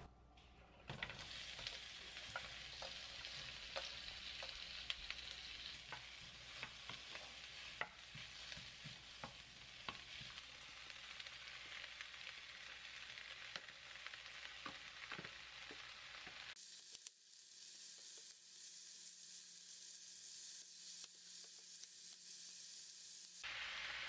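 Sliced onion, green onion and pork belly sizzling in hot oil in a frying pan, with light taps and scrapes of a wooden spatula stirring. The sizzle drops softer about two-thirds of the way through and comes back louder just before the end.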